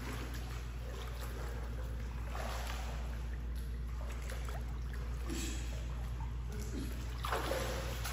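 Water splashing and sloshing as a swimmer strokes through a pool, with soft splashes every couple of seconds over a steady low hum.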